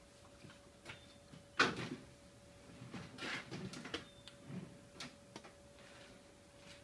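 A few scattered knocks and clatters, the loudest about a second and a half in and a small cluster around three to four seconds, over a faint steady hum; the trimmer engine is not running.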